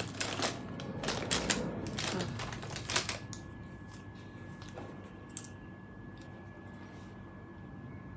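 Small plastic makeup containers clicking and clattering as they are handled and sorted through, for about three seconds. After that only a faint steady high whine and an odd tick remain.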